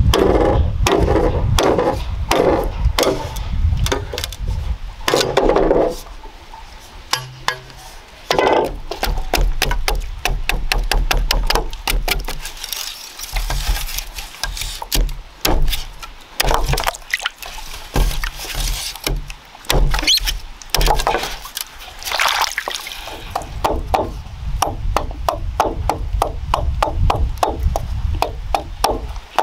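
A knife scraping and chopping a raw root tuber against bamboo poles, in runs of quick, rapid strokes broken by short pauses, with a low rumble underneath.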